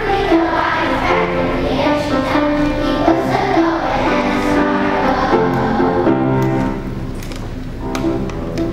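A class of young children singing together with musical accompaniment. The singing stops about six seconds in and the accompaniment carries on.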